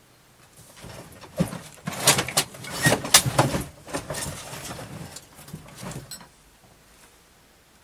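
Thin wooden boards and workshop pieces being handled and knocked against each other: an irregular run of knocks, scrapes and rustles lasting about five seconds, loudest in the middle, then stopping.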